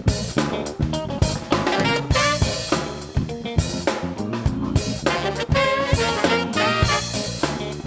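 Live funk band playing an instrumental: a drum kit keeping a steady beat with bass drum and snare, under bass, piano and a saxophone-led horn section playing riffs.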